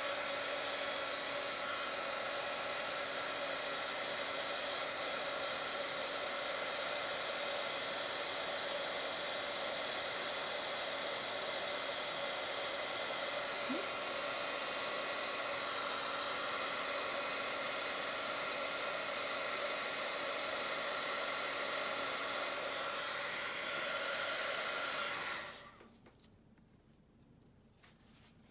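Handheld embossing heat gun blowing steadily, melting clear embossing powder on a paper starfish to give it a glossy, wet look. It cuts off abruptly near the end.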